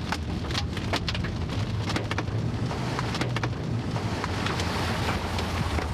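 Heavy rain pelting a moving car, with many scattered sharp hits of drops against the body and glass over a steady low road-and-engine rumble.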